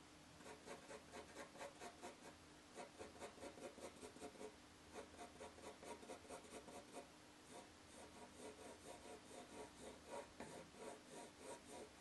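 Pencil hatching on paper: faint, quick scratchy strokes, about three a second, with a couple of short pauses as the shading is built up.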